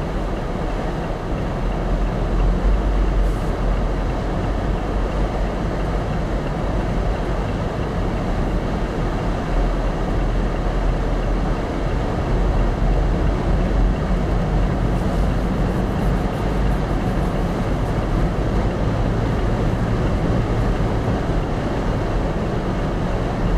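Steady road and engine rumble of a vehicle driving on a snowy interstate, loud and unbroken, heaviest in the low range.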